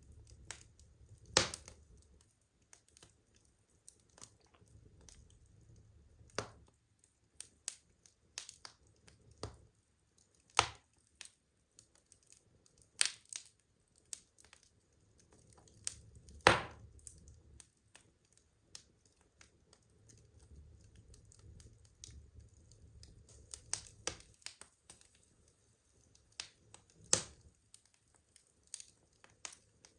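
Wood fire burning, the logs crackling with irregular sharp pops and several louder snaps, over a faint low rumble.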